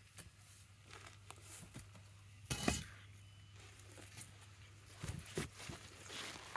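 Wood fire of burning branches crackling with scattered sharp pops, one louder pop about two and a half seconds in and a few more near the end, over a faint steady low hum.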